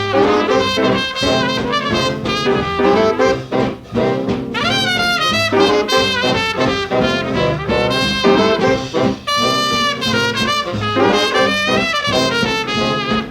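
Early-1940s swing big band playing from a 78 rpm record, the brass section to the fore: trumpets and trombones over saxophones and rhythm. A brass phrase bends in pitch about five seconds in, and a high note is held about ten seconds in.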